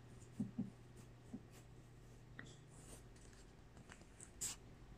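Near silence in a small room with a faint steady low hum, a few soft clicks and rubs from a computer mouse, and a brief sharp sound near the end.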